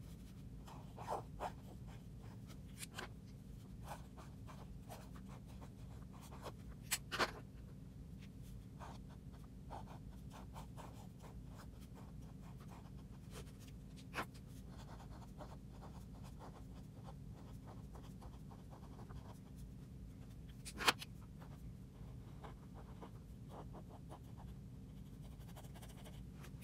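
Glitter highlighter's felt tip scratching softly on paper in many short strokes as letters are drawn. A few sharp clicks stand out, the loudest about seven and about twenty-one seconds in, over a steady low hum.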